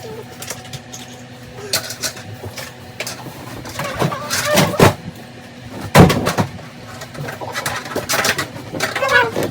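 Knocks and clatter of things in a cluttered room being picked up and moved about, the loudest knock about six seconds in, with snatches of a voice near the end.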